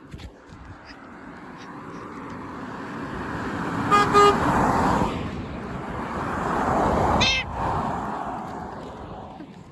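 Passing traffic swells and fades, and a car sounds two short horn toots about four seconds in as it goes by. A brief high squeal comes from the passing traffic a few seconds later.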